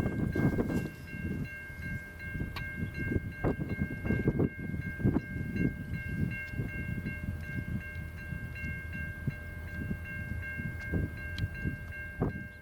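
Freight train passing, with wind gusting hard on the microphone. A steady high-pitched ring of several tones holds throughout, with scattered sharp clicks.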